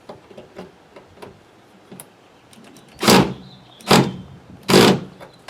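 A power screwdriver driving in sun-visor mounting screws in three short bursts, about a second apart, each the loudest thing here, after a few small clicks of handling.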